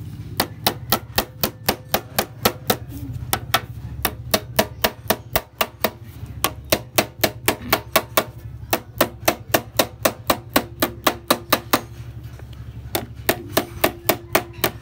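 Small hammer tapping rapidly on the radiator's metal, about four light blows a second, in runs broken by short pauses. A steady low hum runs underneath.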